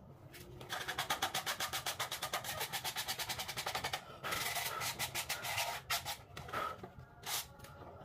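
A wooden bird cage frame being handled on a tile floor. It gives a fast rattle of wooden clicks, about a dozen a second, for some three seconds, then a short scraping and a few separate wooden knocks as the cage is tipped onto its side.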